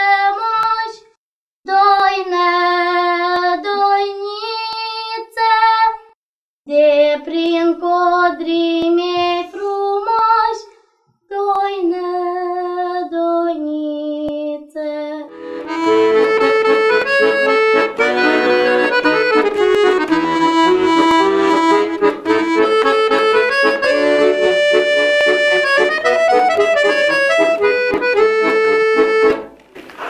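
Young girls singing a Romanian folk doina unaccompanied, in phrases with short breaks. About halfway through a Royal Standard button accordion (bayan) takes over, playing a lively folk tune.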